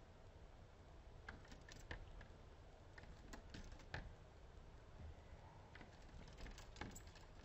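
About a dozen faint, irregular taps and clicks, typical of variegated fairy-wrens pecking at their reflection in a window pane.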